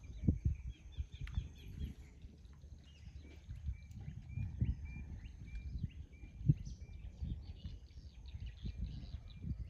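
Birds calling: a short high chirp repeated a little under twice a second from about three seconds in, with bits of twittering, over an uneven low rumble.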